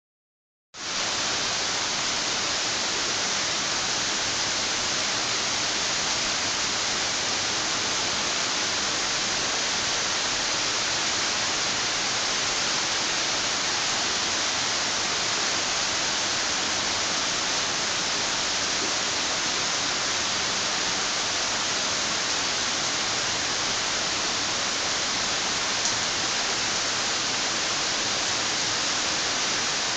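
Heavy rain pouring down steadily as an even hiss, with little wind.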